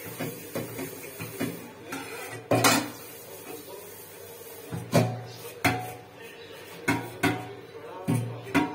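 Steel utensils knocking and clanking together as dishes are washed at a kitchen sink: a few separate sharp clanks, each with a short metallic ring, spaced irregularly about a second apart.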